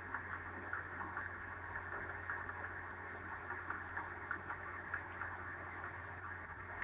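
Steady low hiss with a constant low hum from an open microphone on a streamed lecture's audio channel, with no speech.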